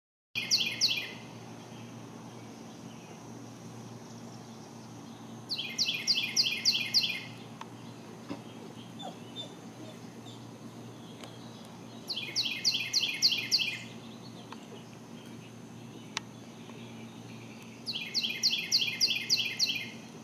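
A songbird singing four times, about every six seconds, each song a quick run of six or seven sharp down-slurred notes lasting about a second and a half. A low steady hum runs underneath.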